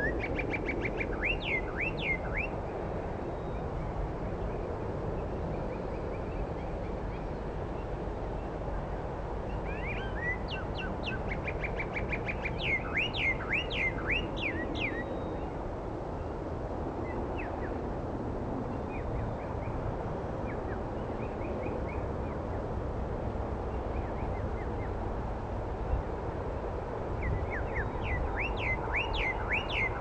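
American goldfinch singing: three bursts of quick high twitters and chirps, near the start, around the middle and near the end, over a steady low background rumble.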